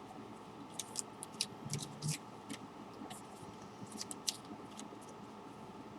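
Tarot cards being handled, making a scatter of light, crisp clicks and snaps, most of them between about one and four and a half seconds in.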